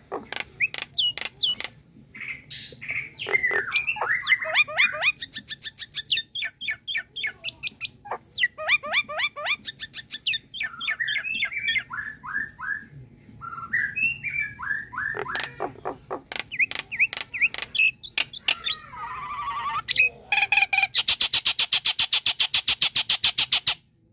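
Common myna singing a varied song of whistled glides, clicks and gurgling notes, ending in a fast, even run of repeated notes that lasts about three seconds.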